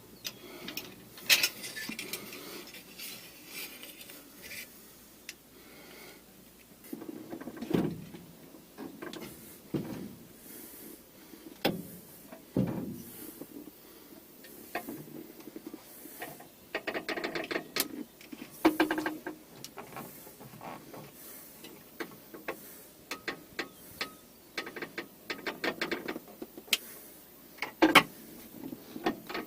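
Irregular clicks, knocks and rattles of handling a bucket of hydraulic oil while topping up a John Deere 410 backhoe's hydraulic oil, with a few louder knocks.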